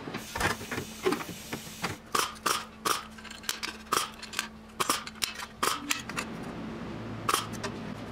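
Hammer striking the steel sheet metal of a car body panel, knocking the floor edge up into place before welding. A short rushing hiss comes first, then a string of sharp, irregular metal strikes, about two a second, with a last blow near the end.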